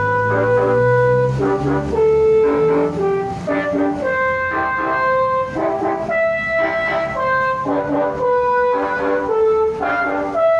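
Bus telolet horn, a set of air-horn trumpets, playing a tune as a string of steady notes that jump from pitch to pitch, some short and some held for about a second.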